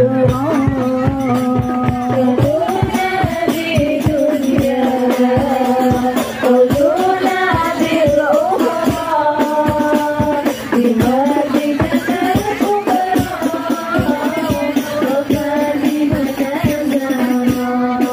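Sholawat devotional singing: a voice holding long, ornamented notes in a sliding melody, over fast, continuous hand-percussion with a rattling jingle.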